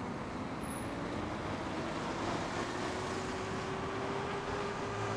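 Steady wind and road noise from riding an Inmotion V11 electric unicycle, with a faint hum that rises slowly in pitch over the second half.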